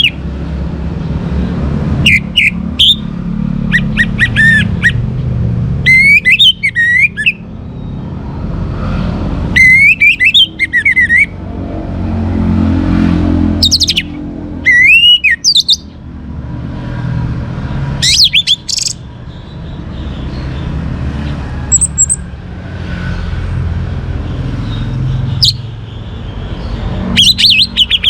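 Young orange-headed thrush singing in short, rapid warbling phrases with quick pitch sweeps, about ten bursts with pauses of a second or more between them. A steady low rumble runs underneath.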